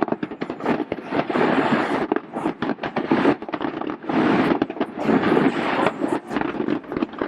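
Fireworks going off: an irregular run of sharp pops and crackles over a dense rumble of bursts.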